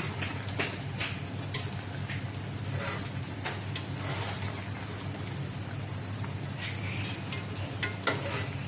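A steel ladle scraping and clinking against an aluminium pot as a thick chicken and potato curry is stirred, with the sharpest knocks near the start and about eight seconds in, over a steady low hum.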